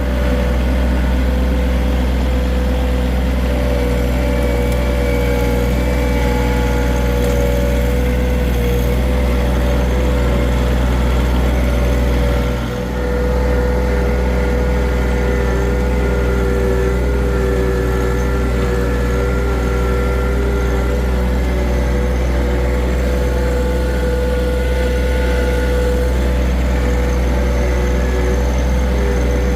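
John Deere 1023E compact tractor's three-cylinder diesel engine running steadily under work, a low drone with a steady higher tone over it. The sound dips briefly about 13 seconds in.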